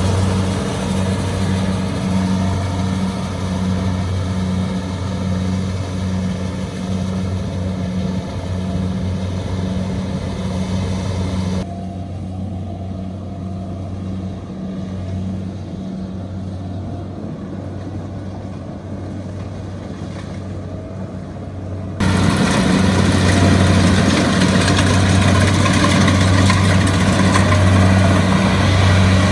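Kubota combine harvester's diesel engine running steadily under load with a deep, even hum. The sound turns abruptly duller and quieter about twelve seconds in, then louder and brighter again about ten seconds later.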